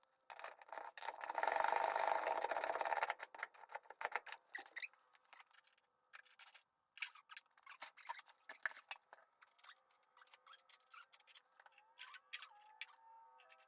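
Scattered clicks, knocks and rattles of hands-on garage work on the engine and transmission install, with a louder rush of noise about a second in that lasts about two seconds.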